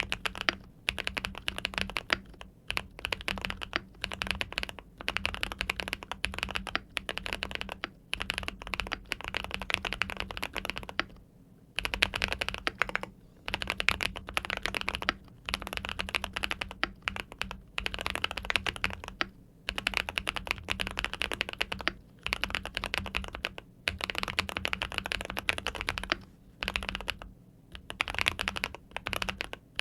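Typing on a Keychron 81 Pro mechanical keyboard with fully lubed Winter Bonfire switches. The keystrokes come in fast runs of a second or two, with brief pauses between them.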